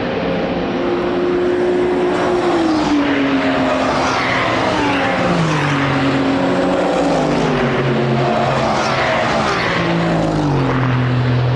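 Racing car engines running loud at the circuit, their pitch dropping in short steps four times with level stretches in between, as the cars downshift.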